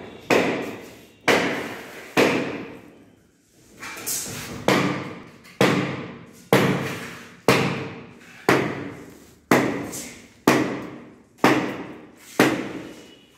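Heavy thuds in a steady rhythm, about one a second, each dying away over most of a second before the next, with one beat left out around three seconds in.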